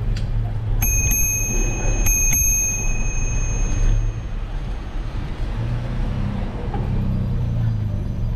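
Bicycle bell rung twice, a little over a second apart, each ding ringing on with a clear high tone that fades out after a couple of seconds, over a steady low rumble.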